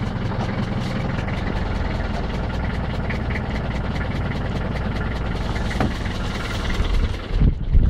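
A London Fairway taxi's Nissan 2.7-litre four-cylinder diesel idling with a steady, even clatter, heard from inside the cab, seconds after a cold start in frost. One cylinder has a slight injector blow-by.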